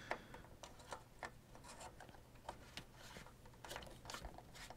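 Faint clicks and rubbing as a cable gland is screwed by hand into a knockout in a solar inverter's connection box.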